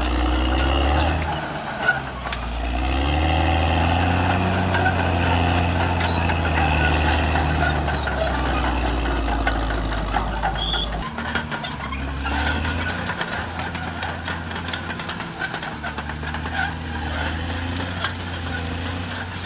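Caterpillar D6R bulldozer's diesel engine running under load, its pitch rising and falling, with a steady high squeal over it. About eleven seconds in, the heavy engine sound falls away and a thinner, fainter engine sound continues with clattering.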